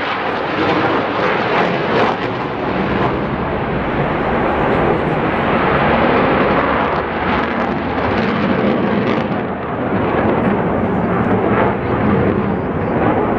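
Jet aircraft flying past at a distance: a loud, steady rush of jet engine noise.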